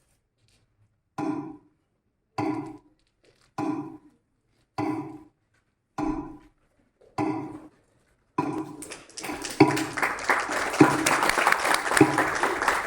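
Six short ringing tones struck at an even pace, about one every 1.2 seconds, followed about eight seconds in by an audience breaking into applause that continues.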